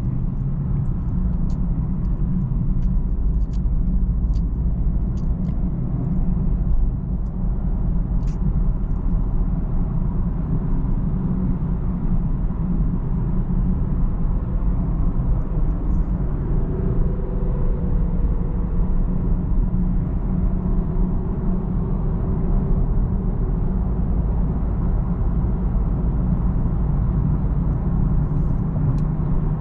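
BMW 330i driving along, a steady low rumble of engine and road noise. A run of faint ticks comes through in the first several seconds.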